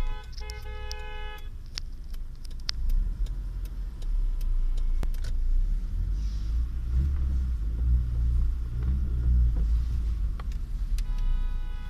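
Low rumble of a car rolling slowly, heard from inside the cabin and swelling in the middle. A few sharp clicks run through it, and a short run of steady electronic tones sounds at the start and again near the end.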